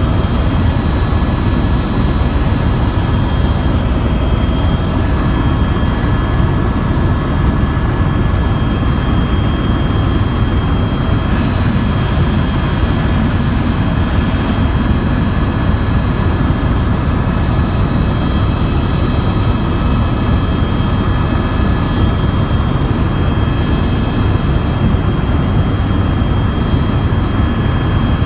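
Tour helicopter in flight: a steady, loud drone of rotor and turbine engine, with a thin steady whine on top.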